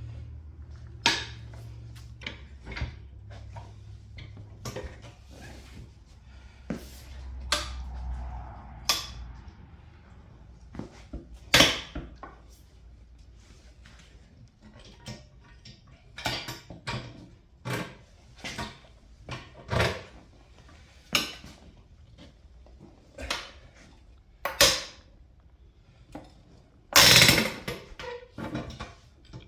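Irregular metallic clanks and knocks of a manual bead breaker being worked against a deflated UTV tire to break its bead. A low steady hum sits underneath for the first several seconds.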